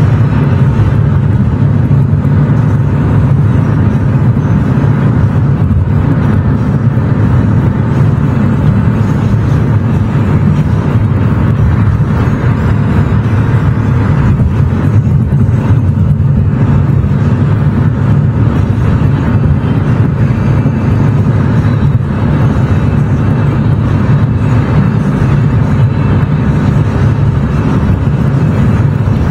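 Car driving at a steady speed: a loud, unbroken low rumble of road and engine noise.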